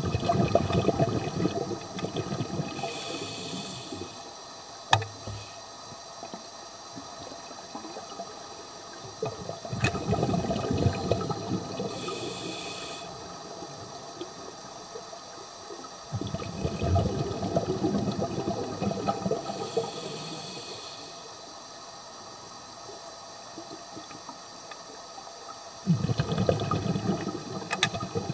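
Scuba breathing heard underwater through a camera housing: four bursts of regulator exhaust bubbles, each bubbling for two to four seconds, and each followed by a short hiss of an inhalation through the regulator. The cycle repeats about every eight seconds.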